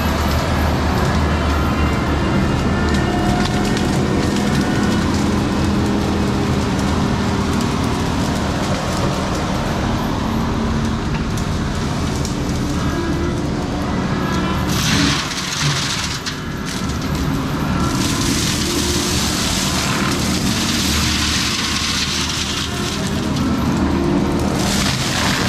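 Compact track loader's diesel engine running hard, driving a GyroTrac forestry mulching head whose spinning rotor chews through brush and wood with crackling and crunching. The grinding gets louder in bursts in the second half.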